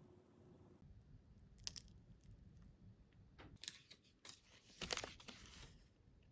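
A few short, crisp crunches and crackles, the longest and loudest a little before the end.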